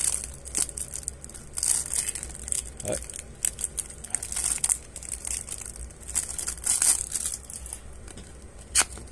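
Cellophane shrink wrap on a card deck box crinkling in irregular bursts as fingers work at it to open the wrapping, with a sharp click near the end.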